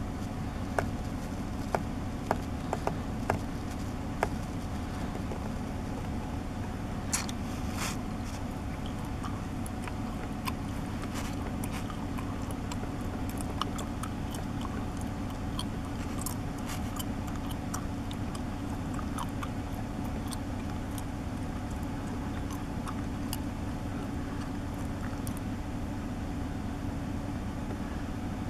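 Steady low rumble of an idling vehicle, with scattered small clicks and ticks, a few sharper ones in the first few seconds.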